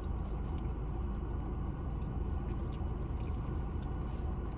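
A person chewing a mouthful of food close to the microphone, with faint small clicks, over a steady low background rumble.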